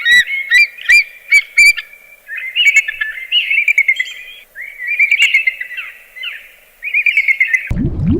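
A small bird chirping: quick series of short, high chirps in several runs with brief pauses, cutting off suddenly near the end.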